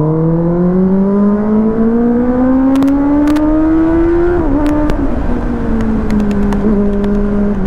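Kawasaki ZX-10R inline-four engine accelerating hard, its pitch rising steadily for about four seconds. Then the note dips briefly and settles into a steady drone that slowly sinks as the throttle eases off.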